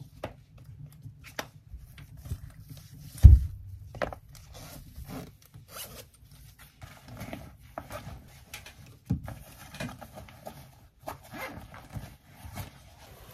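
Packing noises: rustling and zipping as a tablet goes into a padded fabric sleeve and the sleeve is pushed into a nylon backpack, with scattered clicks and a heavy thump about three seconds in.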